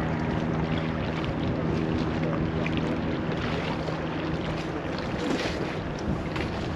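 A low, steady engine drone that fades away over the first few seconds, under constant wind noise on the microphone.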